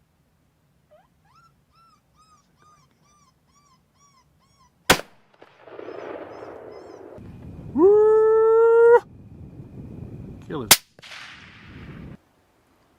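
A run of about ten short high yips, then a rifle shot, then a loud coyote howl that rises and holds for about a second before stopping abruptly, then a second rifle shot.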